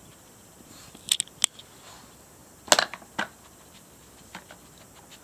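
Hard plastic clicks and clacks from a Trixie Poker Box 2 dog puzzle as a small dog noses at its lids and sliders for a treat: a few sharp knocks about a second in, the loudest just under three seconds in, then fainter ticks.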